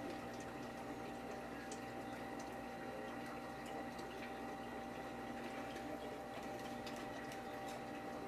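Reef aquarium pumps running: a steady hum with water trickling and bubbling, and faint small ticks throughout.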